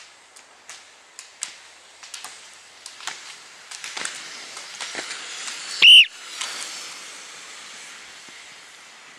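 Ski pole tips clicking sharply on asphalt, two or three clicks a second, growing louder and denser as classic roller-skiers come closer, over a rising hiss. About six seconds in, one short, very loud whistle blast.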